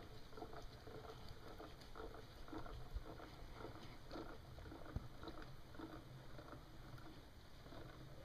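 Hand-cranked Mercedes factory jack being wound up, a faint rhythmic clicking and creaking about twice a second as the crank turns.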